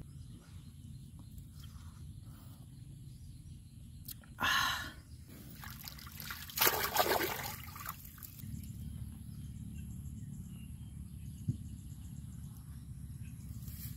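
Water splashing and trickling as a raw pig intestine is rinsed by hand in pond water. There is a short splash about four and a half seconds in, then a longer run of splashing and pouring from about six to eight seconds.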